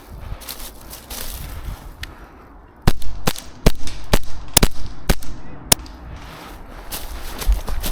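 Airsoft gun fired in seven single shots, a sharp crack about every half second, preceded by rustling movement.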